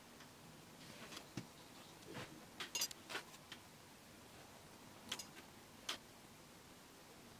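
Faint, scattered light clicks and taps of a paintbrush knocking against a metal watercolour palette and a glass water jar while mixing paint. A cluster of several quick taps comes a little under three seconds in, with single clicks before and after.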